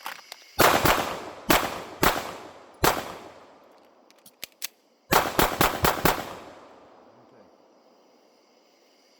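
Pistol fire on a range: about five aimed shots spaced roughly half a second apart, a brief pause with a few faint clicks, then a fast string of about five shots. Each report trails off in an echo.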